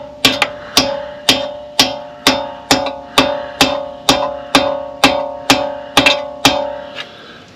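Small ball-peen hammer tapping carrier bearing shims into a Ford 8.8 rear axle housing to drive them home. Light, even taps about two a second, each with a clear metallic ring.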